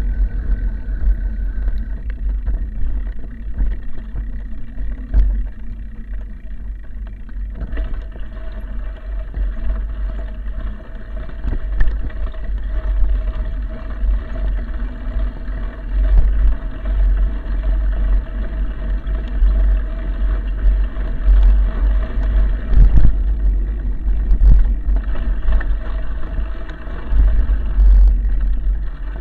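Wind buffeting and rumble on an action camera riding along a rough dirt road, with a steady hum from the vehicle carrying it and a few short knocks from bumps.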